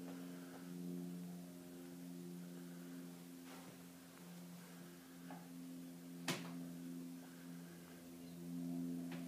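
A steady low hum with several tones, with a few faint clicks and one sharper click about six seconds in.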